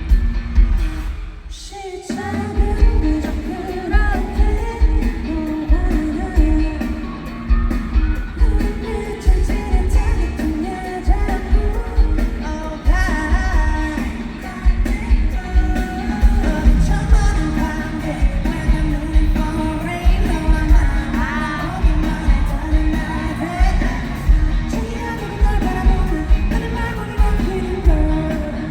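Live pop-rock song with singing over a band backing and a heavy, pulsing bass beat. The bass drops out briefly about a second and a half in, then the beat comes back.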